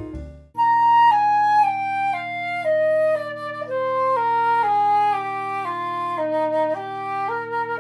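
Flute played over a steady, sustained low tuning drone, the melody stepping down note by note from high to low and then climbing back up near the end, as in intonation practice against a drone. Jazzy piano music cuts off about half a second in, just before the flute enters.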